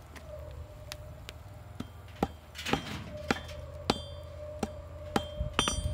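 Blacksmith's hand hammer striking steel on an anvil: about ten irregular blows roughly half a second apart, quickening into a fast cluster near the end, several with a bright metallic ring.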